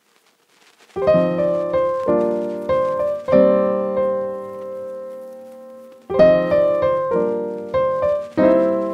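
Background piano music: chords struck and left to die away, starting about a second in, with a long held chord fading before a new phrase begins about six seconds in.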